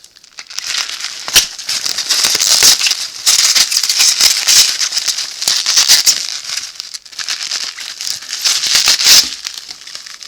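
Packing wrap rustling and crinkling loudly as it is pulled off a glass ramune soda bottle, a dense crackle full of small clicks that eases briefly partway through and fades near the end.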